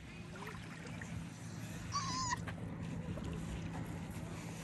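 Small waves lapping gently on a sandy shore. About two seconds in, a short high wavering call cuts through.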